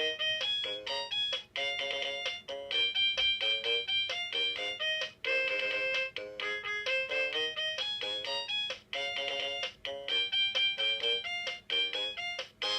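Anpanman Pika Pika Keyboard toy keyboard playing its built-in demo tune: a quick melody of short, bright electronic beeping notes over a simple accompaniment, with brief gaps between phrases.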